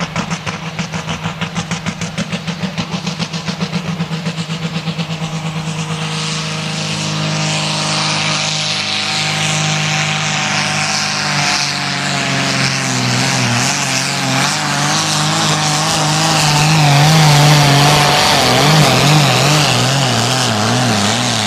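Turbocharged diesel pulling-tractor engine, a production-based engine with a single turbocharger, on a run against the brake sled. It pulses in a steady rhythm for about the first six seconds, then runs at full load, louder and steady in pitch. From about the middle on, the pitch wobbles up and down as the tractor works down the track.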